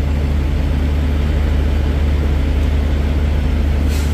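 Semi truck's diesel engine idling with a steady low drone.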